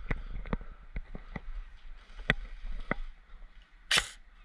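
Airsoft gunfire: a scattering of sharp ticks over the first three seconds, then one louder shot about four seconds in.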